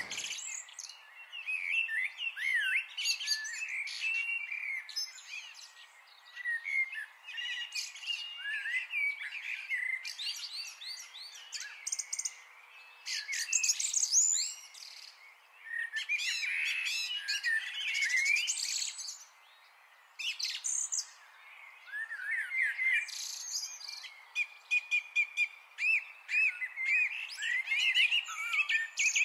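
Songbirds singing and chirping: many short rising and falling calls from several birds overlapping, with brief lulls.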